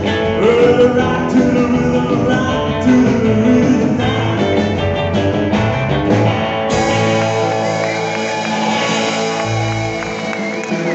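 Live rockabilly band: electric guitar and drums playing at full volume. About seven seconds in they land on a long held final chord with ringing cymbals and a wavering high guitar note.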